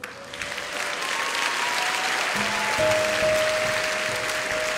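A congregation applauding over soft instrumental worship music: sustained held notes, with low bass notes joining about two and a half seconds in.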